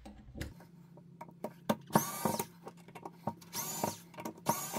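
Panasonic cordless electric screwdriver whirring in three short runs as it backs out the 2.5 mm hex screws of an air rifle's trigger guard, with small clicks of the bit and screws in between.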